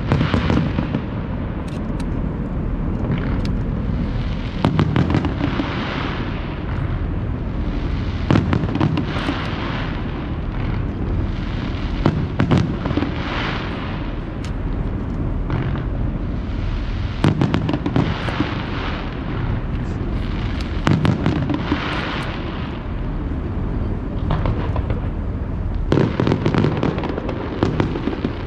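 Aerial firework shells bursting one after another: sharp bangs every few seconds, some in quick clusters, with crackling and a continuous low rumble between them.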